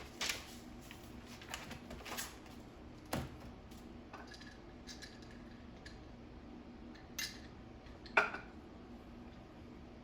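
A few light clicks and clinks of small hard objects being handled, spread out over several seconds, over a faint steady hum.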